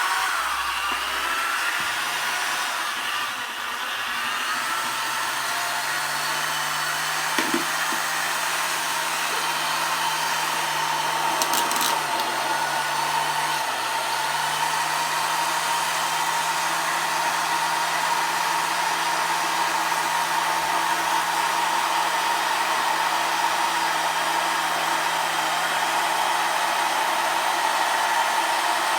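Electric power tool motor running on a homemade AC speed controller (dimmer). It speeds up over the first couple of seconds, then runs steadily with a whine, stepping up slightly about halfway through.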